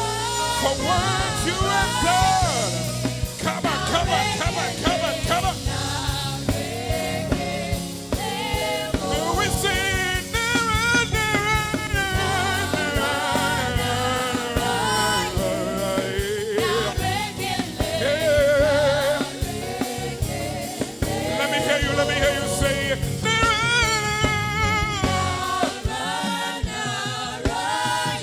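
Gospel praise singing with a wavering lead voice over a live band with bass and a steady beat.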